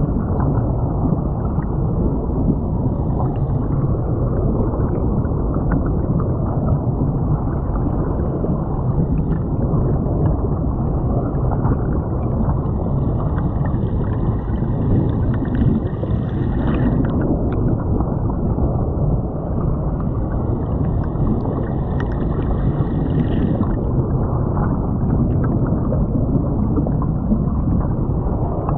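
Creek water rushing and gurgling as heard by a camera lying underwater, a steady muffled rumble with no high end. A faint high tone comes in twice, for a few seconds each, in the middle.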